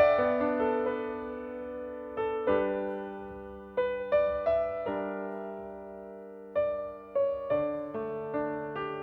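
Slow piano music: chords and single notes struck a few at a time, each left to ring and fade.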